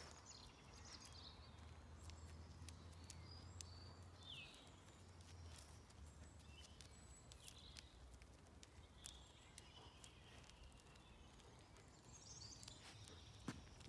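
Faint outdoor ambience of small birds chirping and calling on and off, with a few light clicks of footsteps on gravel.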